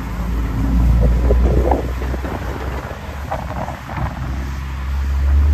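Water truck's engine running as the truck drives slowly and sprays water over a dirt site, under a heavy, uneven rumble of wind on the microphone.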